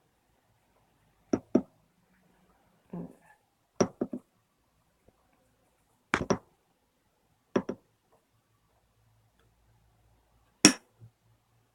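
Sharp metallic clicks and clinks, several in quick pairs, from a screwdriver working the screws out of a door latch.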